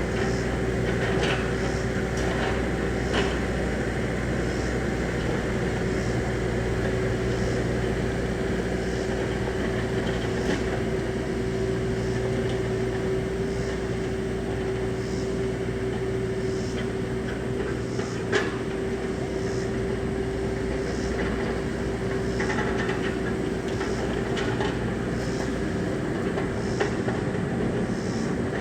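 Bobcat E26 compact excavator's diesel engine running steadily under work, a constant hum with one high held tone, with scattered light metal clanks and one sharp knock about 18 seconds in.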